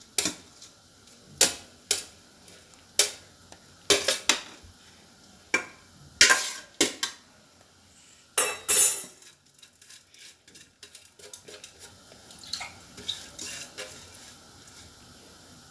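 A metal couscoussier steamer basket is knocked and shaken against a clay dish to empty out steamed vermicelli after its second steaming. Sharp clanks come about every second or so for the first nine seconds, then give way to faint taps and rustling.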